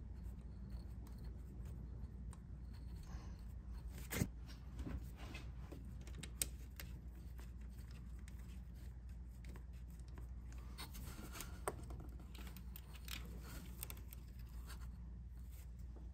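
Faint, scattered clicks and scrapes of a socket and extension working the 8 mm bolts out of an engine's vacuum pump, with a sharper click about four seconds in, over a low steady hum.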